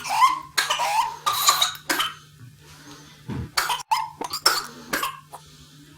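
A child with whooping cough coughing in rapid paroxysmal runs, cough after cough, with high-pitched gasping intakes of breath between coughs. The fit pauses for about a second midway and thins out near the end, over a faint steady hum.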